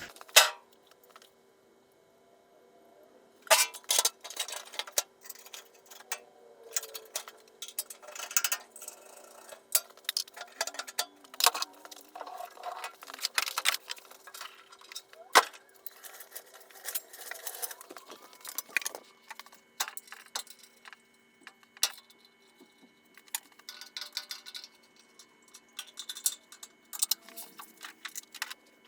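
Metal tools and parts being handled: repeated sharp clinks, knocks and clatters at irregular intervals, over a steady faint hum.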